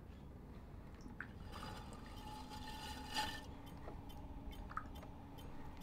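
Hands working wet clay and water at a potter's wheel: small wet squishes and drips, with a steady low hum underneath and a louder splash-like sound about three seconds in.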